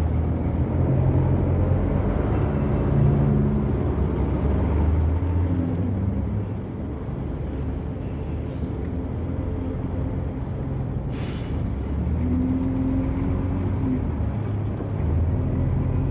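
Vintage bus engine running with a low rumble, its pitch shifting up and down as it drives, and a brief burst of hiss about eleven seconds in.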